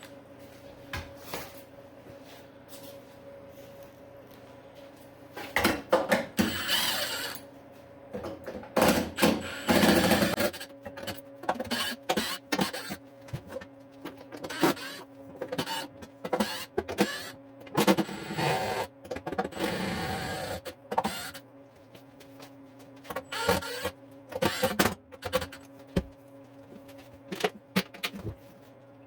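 A power drill running in short bursts of a second or two, backing out screws to take apart a wooden shop tool cart. Between the bursts, scattered knocks and clicks of wood and hardware being handled.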